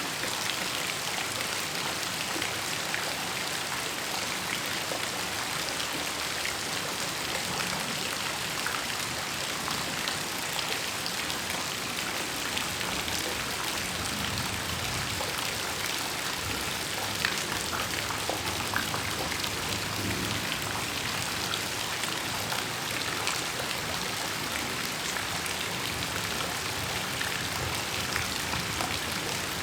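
Heavy rain falling steadily: a dense, even hiss dotted with many sharp ticks of individual drops striking surfaces.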